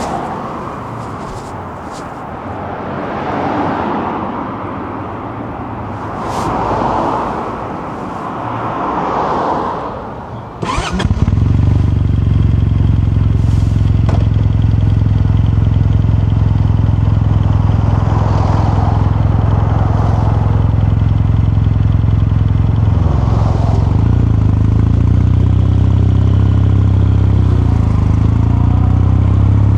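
Kawasaki Meguro K3's air-cooled parallel-twin engine starting about a third of the way in, then idling steadily. Before it starts, there is only rising and falling background road noise.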